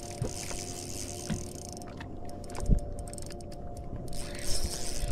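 Fishing reel being cranked against a heavy catfish, its gears clicking rapidly in spells, over a steady hum, with a few dull knocks against the boat.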